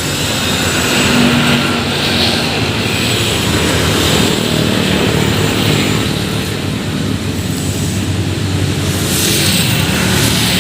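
Large diesel bus engine running steadily at idle, with a broad hiss over its low, even drone.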